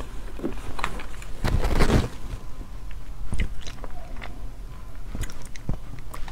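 Close-miked wet chewing and mouth clicks from eating the soft, seed-filled pulp of akebia (chocolate vine) fruit, with a louder brief rush of noise about one and a half seconds in.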